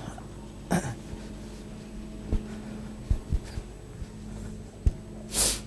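Operating-room background: a steady low electrical hum with a few soft knocks, and a short rush of noise near the end.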